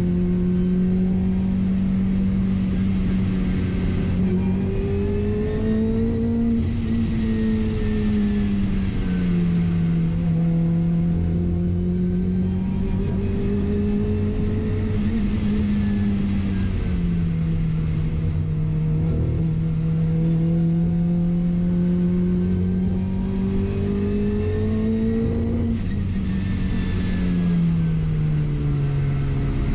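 Car engine under way, its pitch rising and falling slowly with throttle and road speed and dropping sharply near the end as the car slows. The car has a misfire.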